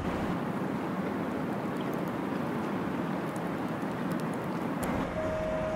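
Steady running noise of a tour boat under way on a river, engine and water wash together. Near the end a single steady tone starts and holds.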